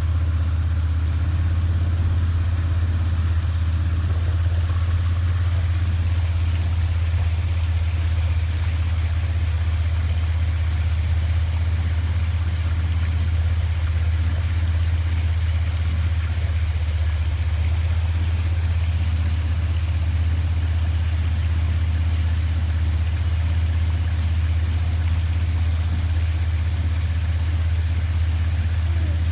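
A boat engine running steadily as the boat moves along the river, a low, even drone that does not change.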